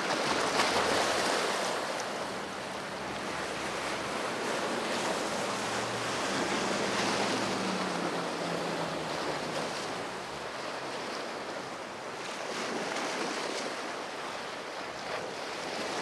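Steady wash of waves and wind across the microphone, with the faint drone of a passing boat's outboard engines, clearest about halfway through.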